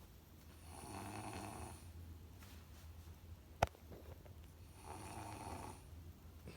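Baby snoring: two snores about four seconds apart, each lasting about a second. A single sharp click falls between them.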